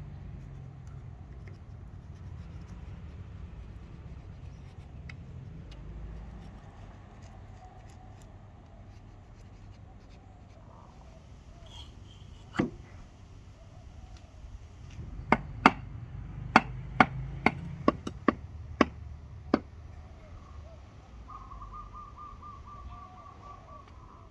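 A run of about nine sharp knocks, roughly two a second, with a single knock a few seconds before them. A short rapid trill comes near the end, over a low steady rumble.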